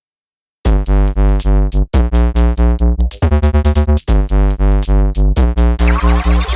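Electronic music with synthesizer chords and a pulsing heavy bass, starting about half a second in; the beat quickens around three seconds in and a descending synth sweep comes in near the end.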